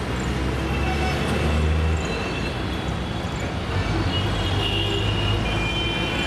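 Street traffic: a steady low rumble of vehicle engines, swelling and easing as vehicles pass.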